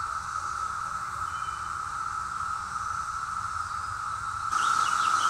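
Steady, even drone of summer insects in the woods. About four and a half seconds in it gets louder, and a few short bird chirps come in over it.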